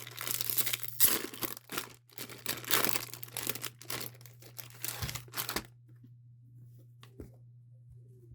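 Packaging of a Pokémon card First Partner Pack being torn open and crinkled for about six seconds, then only small handling sounds over a low steady hum.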